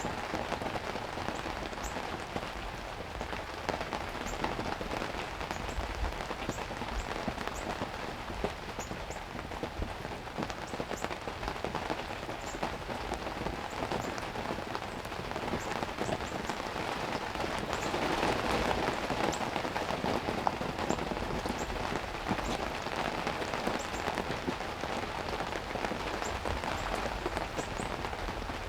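Heavy rain falling steadily, swelling louder for a few seconds about two-thirds of the way through.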